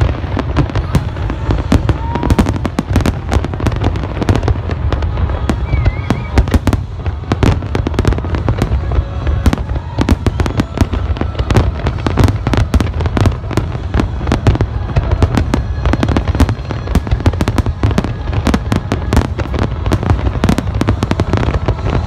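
Large aerial fireworks display: a dense, continuous barrage of bangs and crackles over a deep rumble, many bursts a second without a break.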